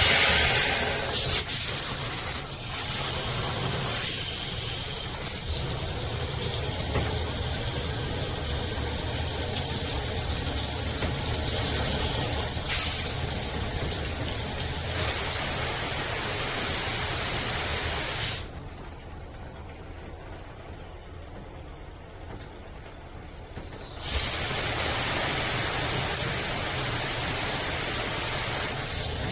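Water spraying steadily from a SparkPod 10-mode handheld shower head, a steady hiss with a few clicks near the start. About two-thirds of the way through the spray drops to a much quieter hiss for several seconds, then comes back at full strength.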